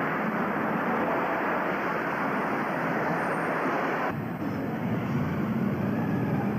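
A steady rushing rumble with no clear tones, the kind of noise a train or traffic makes. About four seconds in it cuts abruptly to a duller, deeper rumble.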